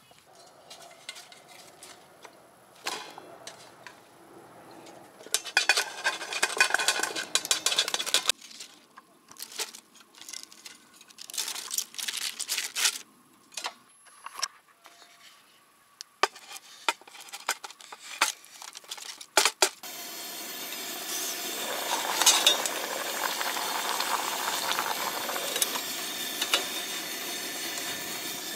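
Cooking pots and utensils being handled: scattered clinks and short bursts of clattering and rustling. From about twenty seconds in, a steady hiss runs under the pot on the camp stove, which is being brought to a rolling boil.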